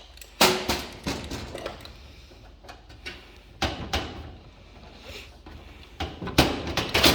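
Sheet-metal furnace access panel being worked off its frame: a series of sharp knocks and clunks, the loudest near the start and near the end. Lifting the panel releases the door safety switch, which cuts power to the furnace.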